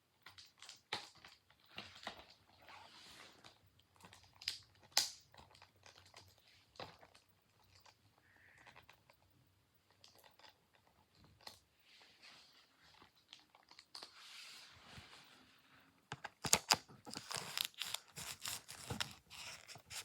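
Plastic shrink wrap being picked at and torn off a DVD case: irregular crinkling, crackling and tearing, with a dense run of crackles near the end. The wrap is tight and hard to get open.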